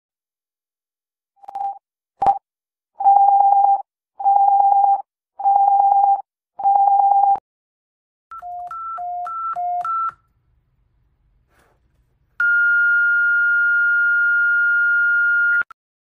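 Electronic emergency-alert tones: four evenly spaced beeps of one pitch, each just under a second long, then a quick alternation of a low and a high beep, and near the end one long steady high tone of about three seconds that cuts off sharply. A short blip and a click come first, about two seconds in.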